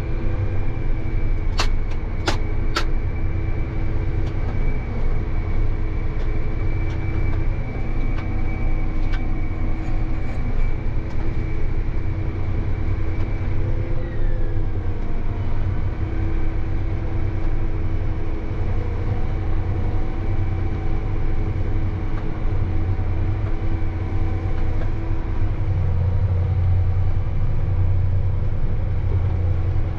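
Farm tractor engine running steadily under road travel, heard from inside the cab, with a deep rumble and a steady high whine that drops in pitch about halfway through. Three sharp clicks come a couple of seconds in.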